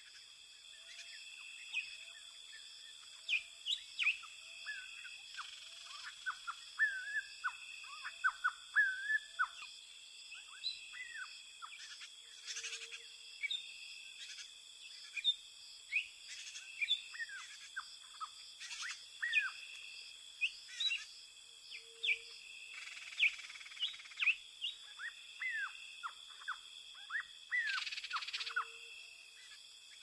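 Tropical rainforest ambience: many birds chirping and whistling in short, quick calls over a steady high-pitched insect drone. A soft low note repeats a little faster than once a second through the first ten seconds.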